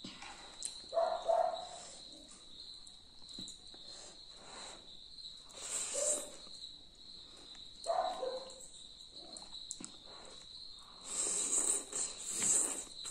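A person slurping and chewing thukpa noodles in four short bouts, with quieter mouth sounds between, over a steady high-pitched tone in the background.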